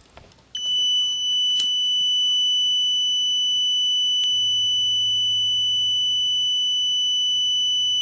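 Continuity beeper of a UEi DL389B clamp multimeter sounding one steady high-pitched tone from about half a second in: the flame rollout limit switch on its leads is still closed and conducting. Two brief faint clicks are heard under the tone.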